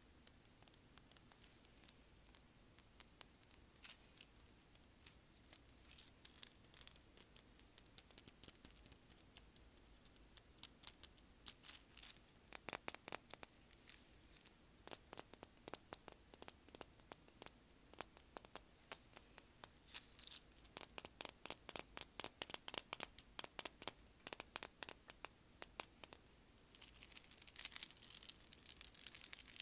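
Fingernails tapping on seashells and small beach trinkets: quick, sharp taps in bursts, turning to a fast, dense scratching near the end.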